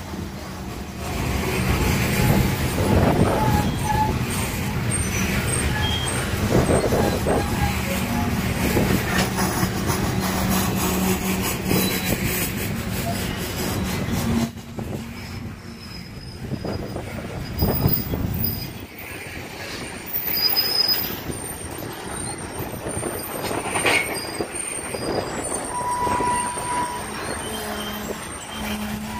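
A freight train of coal cars rolling past close by: a steady rumble of steel wheels on rail, with sharp clacks as wheels cross joints and brief thin squeals from the wheels.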